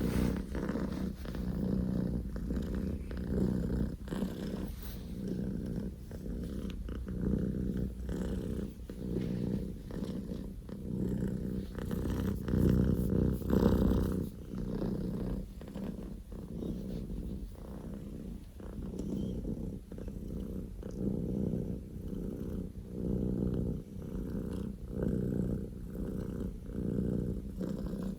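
Scottish Fold kitten purring very loudly, close up, a deep rattling purr that swells and fades every couple of seconds with each breath.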